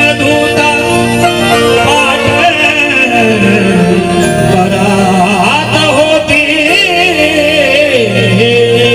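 Music from a Marathi song performance: a wavering melody line over steady held notes, with no sung words.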